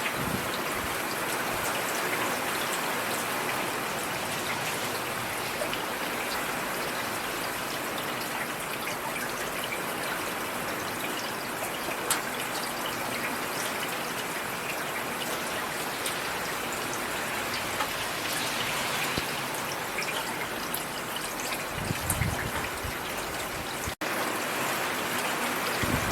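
Steady rain falling, a dense even hiss with individual drops ticking sharply now and then. A short low rumble comes about 22 seconds in, and the sound cuts out for an instant shortly before the end.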